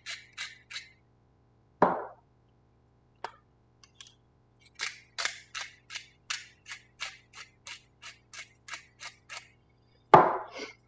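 Hand-twisted spice grinder grinding salt and pepper over a bowl of sauce, a run of short clicks at about three to four a second, twice, with a louder click about 2 s in. A knock near the end as the grinder is set down.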